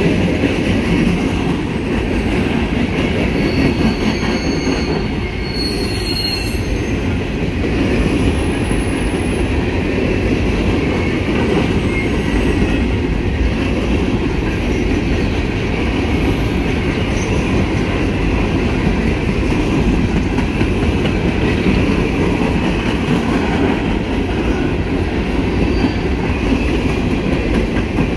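Empty coal hopper cars of a long freight train rolling past at speed: a steady loud rumble and rattle of steel wheels on rail, with a few brief high wheel squeals about four to six seconds in.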